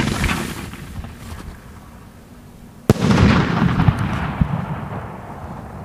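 Sky shot aerial firework: the shell goes up with a hiss, then about three seconds in bursts with a sharp bang followed by a rumbling, crackling tail that fades over a couple of seconds.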